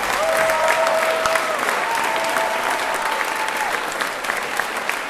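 Audience applauding. A few long held tones sound over the clapping.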